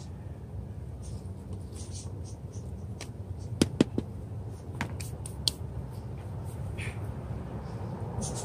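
Metal hand trowel knocking and scraping against a plastic nursery pot and its potting soil: a few sharp clicks, the two loudest close together about three and a half seconds in, then lighter taps and a short scrape. A steady low hum underneath.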